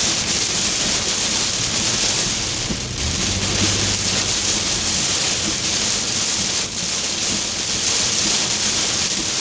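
Heavy rain beating on a moving car, heard from inside the cabin as a steady hiss.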